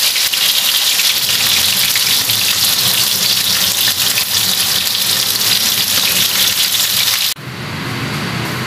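Milkfish pieces frying in hot oil under a glass lid: a loud, steady crackling sizzle. It cuts off suddenly about seven seconds in, leaving a quieter, lower-pitched steady sound.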